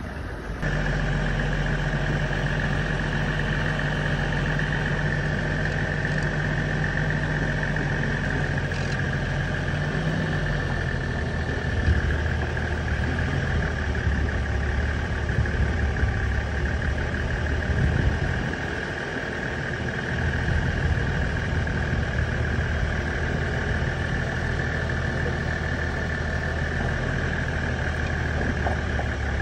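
Safari game-drive vehicle's engine idling with a steady low hum, dipping briefly a little past two-thirds of the way through.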